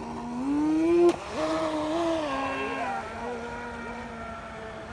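RC boat motor whining as the throttle is opened, rising in pitch for about a second. A sharp knock comes about a second in, then the whine picks up again and settles to a steadier, lower pitch.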